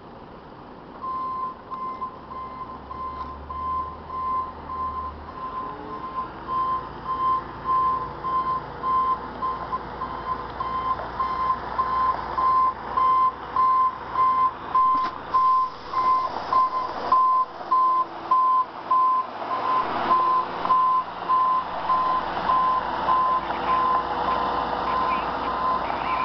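A truck's reversing beeper sounding a steady train of beeps at one pitch, over the truck's engine and tyres growing louder as it comes closer.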